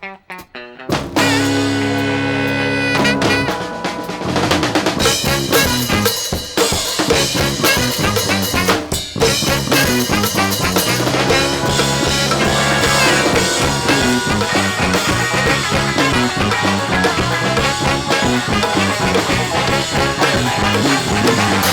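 Live rock band playing an instrumental passage with no singing. A few separate drum hits sound in the first second, then the full band with drum kit comes in together and keeps playing steadily.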